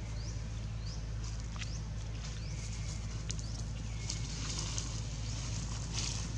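Dry leaves crackling in short clicks as a baby macaque handles and chews a leaf on the leaf-strewn ground. Under it runs a steady low hum, and short high chirps come again and again in the background.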